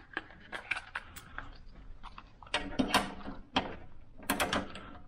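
Small red ABUS padlock being fitted to a hasp and staple on a metal cabinet door: a string of metallic clicks and rattles, busiest about halfway through and again near the end.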